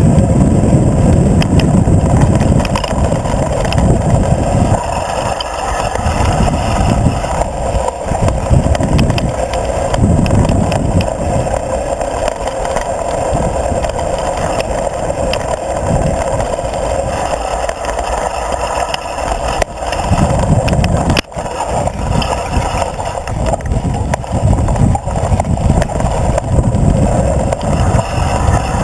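Wind buffeting a mountain bike's mounted action-camera microphone as the bike rolls fast down dirt singletrack, the low rumble swelling and fading, with tyre noise and small clattering rattles from the bike over the bumps.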